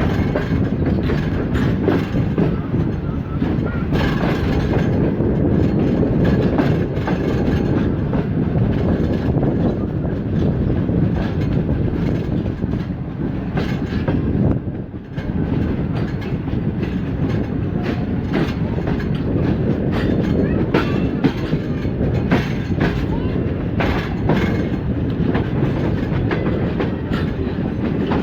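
Passenger train coaches rolling past, a steady low rumble with frequent clicks of wheels over rail joints, easing for a moment about halfway through.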